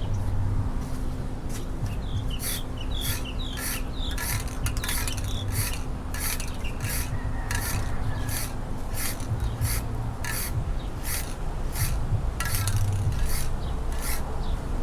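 Repeated hand strokes rubbing and scraping over a boat hull's surface, about two a second in a steady rhythm, while the hull is being painted.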